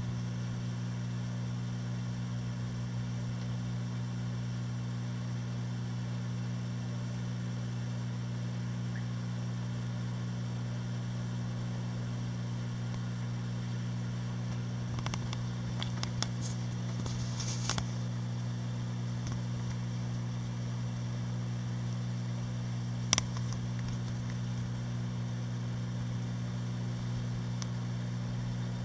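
Steady low hum of a Red Sea Max 130 all-in-one reef aquarium's pumps and hood fans running, with a few faint clicks about halfway through and one short, sharp click late on.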